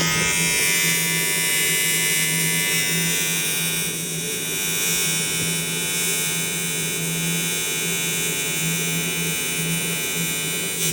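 Welding arc buzzing steadily as a weld bead is laid around a sensor fitting on an intake pipe, then cutting off suddenly at the end.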